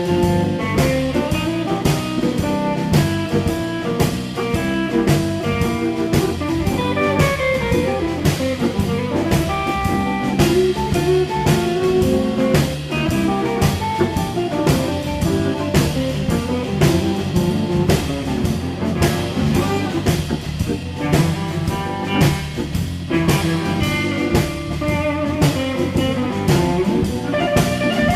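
Rhythm-and-blues band playing an instrumental blues: Hammond organ with electric guitar over a drum kit keeping a steady beat.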